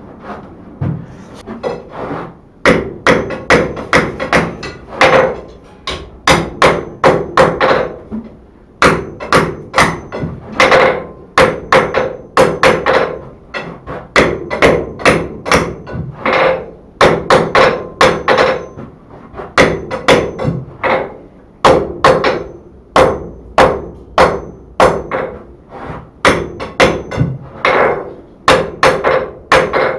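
Hand hammer striking the red-hot end of a 3/8-inch square steel bar on an anvil, upsetting it. Runs of sharp, ringing blows, about two to three a second with short pauses between runs, start about two seconds in.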